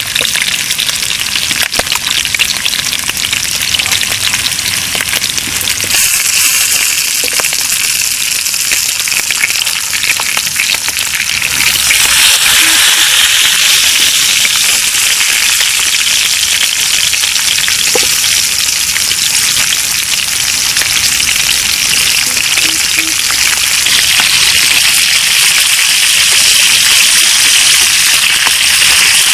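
Food frying in hot oil with a steady sizzle that grows louder about 6 seconds in and again about 12 seconds in.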